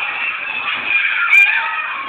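Mixed crowd voices and background music, with one sharp knock about one and a half seconds in.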